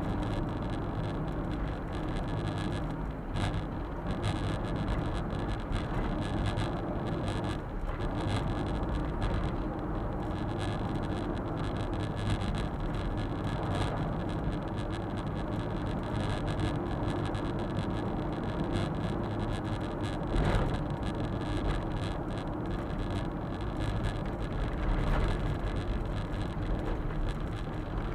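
Suzuki Super Carry kei truck's small three-cylinder engine and tyre noise on the road, heard from inside the cab: a steady running sound with a few brief knocks from bumps in the road.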